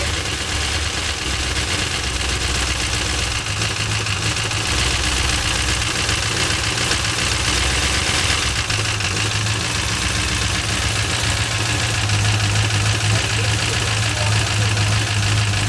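6.0-litre LS V8 with a Sloppy Stage 2 camshaft idling steadily just after start-up, with a loud, even lifter tapping over the idle. The men working on it put the noise down to the lifters, which they think may not yet have pumped up.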